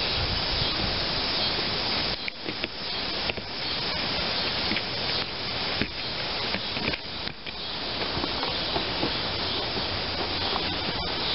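Air-powered spray gun hissing as adhesive is sprayed onto seat foam, in long spurts broken by a few short pauses in the middle.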